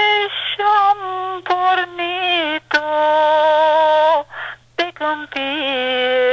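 A solo voice singing a Romanian folk song unaccompanied, holding long, slightly wavering notes with sliding ornaments, broken by quick breaths.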